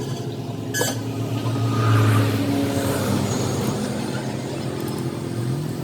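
A vehicle engine running steadily, with a short rise in pitch near the end. A sharp metallic click comes about a second in.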